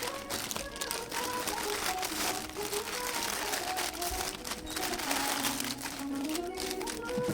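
Plastic packaging crinkling and rustling as a screwdriver is unboxed, over background music with a wandering melody.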